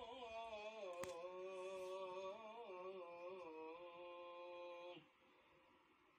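A muezzin's call to prayer, faint in the background: one long drawn-out sung phrase that wavers slowly in pitch and ends about five seconds in. A single sharp click sounds about a second in.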